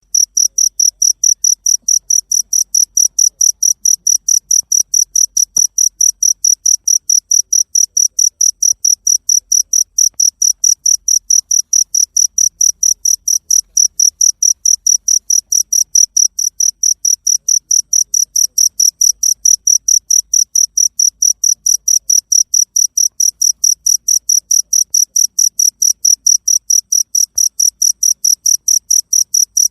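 Cricket chirping steadily: a high, even pulse repeated about four to five times a second without a break.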